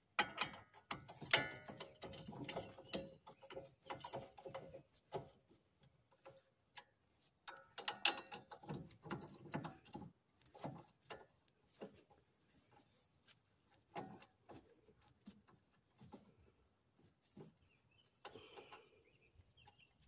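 Hand ratchet clicking as caliper bracket bolts are run down snug: two long runs of quick clicks in the first half, then scattered single clicks.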